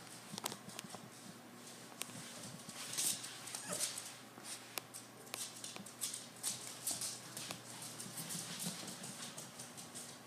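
Bull terrier puppy's claws clicking and pattering on a hard floor as it moves around, in irregular light taps.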